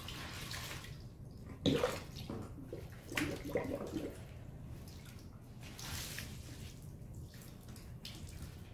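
Wet dyed silk garments being squeezed and wrung out by hand in a sink of water, with splashing and dripping. A louder splash comes about two seconds in, then smaller splashes and drips.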